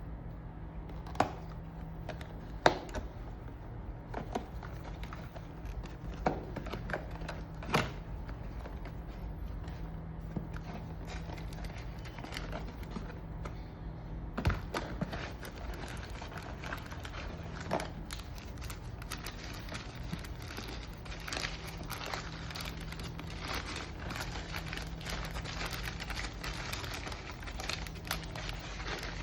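Food packaging crinkling and rustling as it is handled, with a few sharp clicks and knocks, over a steady low hum. The rustling grows denser in the last third.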